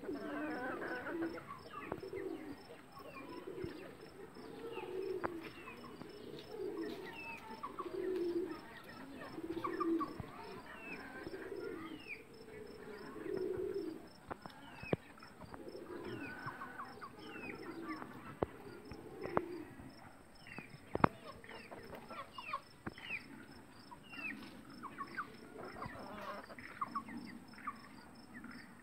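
Birds calling: a low call repeats about every second and a half through the first half, over many short high chirps. A few sharp clicks come through, the loudest about three-quarters of the way in.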